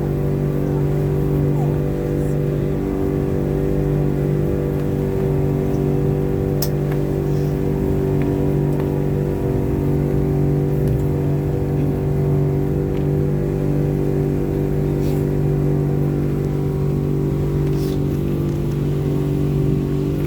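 Outboard engine of a small passenger boat running steadily under way, a constant drone with no change in speed.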